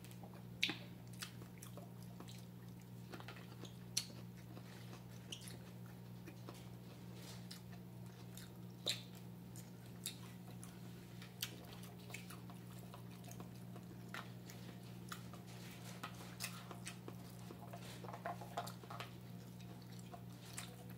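Quiet chewing and mouth sounds from people eating, with scattered small clicks and ticks, over a steady low hum.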